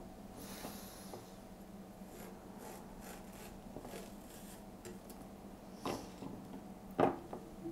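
Chinese cleaver slicing the core away from courgette quarters on a wooden chopping board: soft scraping and rubbing of the blade through the flesh. Two sharper knocks of the blade on the board come about six and seven seconds in, the second the louder. A faint steady hum runs underneath.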